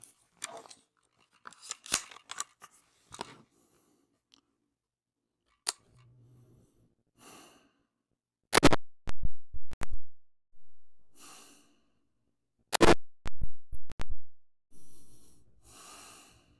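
Two shots from an AR-15 in 5.56 mm fitted with a muzzle brake, about four seconds apart and each trailed by a few fainter echoes. These are slow, aimed shots of a three-shot zeroing group.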